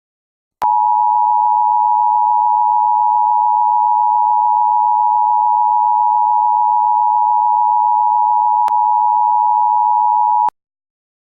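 Emergency Broadcast System attention tone: one steady, loud, high-pitched beep held for about ten seconds, starting and stopping abruptly with a faint click.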